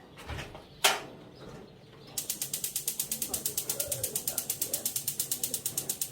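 Oven being switched on to preheat: a couple of knocks as it is set, then a fast, even clicking starts about two seconds in, roughly nine ticks a second.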